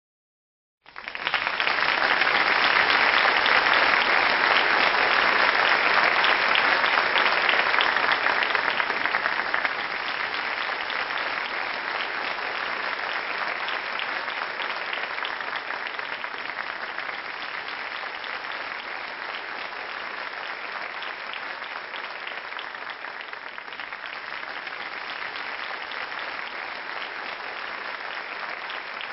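Sustained applause from a crowd, starting suddenly about a second in, loudest for the first several seconds, then easing to a steady, slightly lower level.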